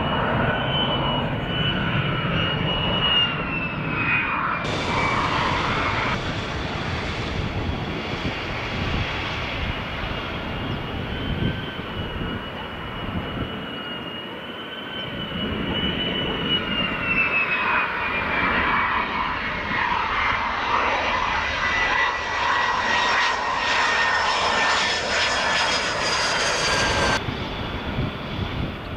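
F-35 Lightning II's single Pratt & Whitney F135 turbofan running during landing: a high whine over a broad jet roar, the whine sliding slowly down in pitch. The sound changes abruptly about five seconds in and again near the end.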